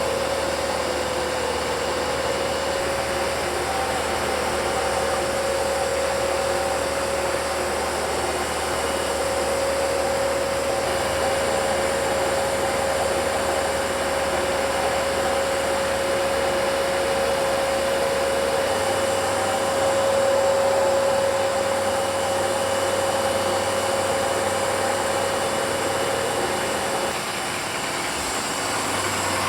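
ProtoTrak CNC mill's spindle and cutter machining an aluminium block: a steady whine over a rushing mechanical noise. The whine stops about two seconds before the end as the cut finishes.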